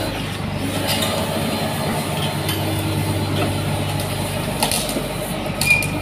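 Diesel engine of a Komatsu D85ESS-2 bulldozer running steadily, with a few sharp metallic clinks scattered through.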